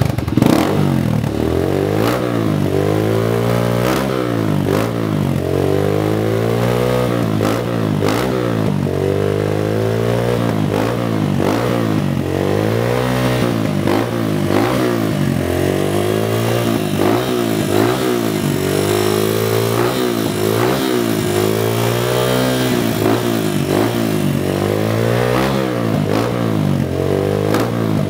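Kawasaki KLX 150 BF's single-cylinder four-stroke engine breathing through a Pro Speed TX Series aftermarket exhaust, revved in repeated throttle blips. The engine note rises and falls every second or two.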